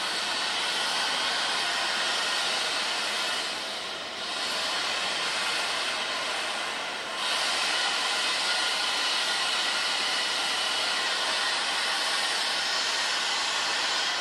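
Steady rushing hiss of diesel locomotives running in a rail yard, dipping briefly twice, about four and seven seconds in.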